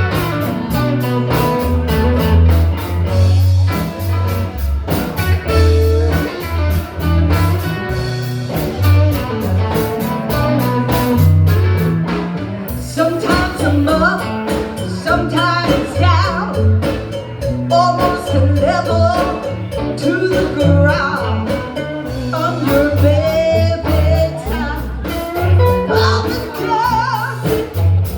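Live blues band playing a song, with a pulsing bass line, guitar and drums. A wavering lead melody comes in about halfway through.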